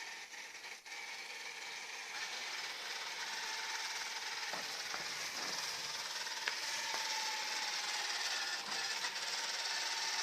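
Robot vacuum cleaner running, its suction fan and brushes whirring steadily, with a few light clicks as it drives over cables on the floor.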